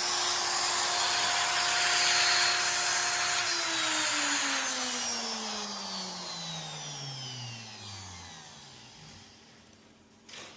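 CNC router spindle running with a steady whine over a noisy hiss, then switched off about three and a half seconds in and spinning down, its pitch falling away over several seconds until it goes quiet.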